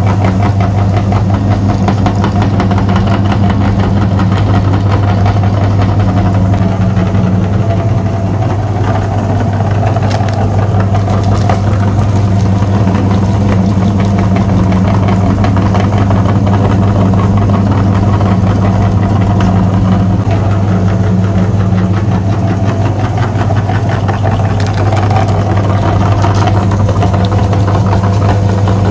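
Engine idling: a loud, steady low drone that holds without a break.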